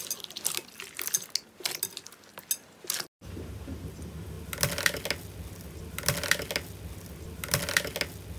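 Clear slime packed with white foam beads squished by hand, crackling with quick clicks and pops. After a cut about three seconds in, gold foil pressed under a perforated metal disc with an awl, crinkling three times about a second and a half apart over a low steady hum.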